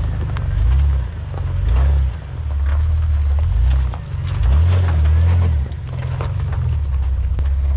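Jeep TJ's engine revving up and down in short pushes as it crawls over a log and rocks at low speed, with scattered clicks and knocks from tyres on rock and gravel.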